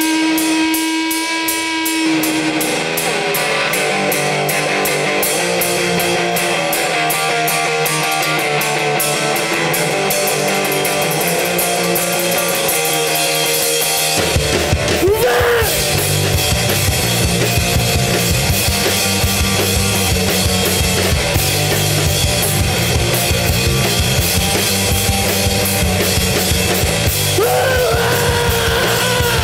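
Rock band playing live: electric guitar over rapid cymbal strokes, then bass and full drum kit come in heavily about halfway through. A singer's voice slides in pitch shortly after the band comes in and again near the end.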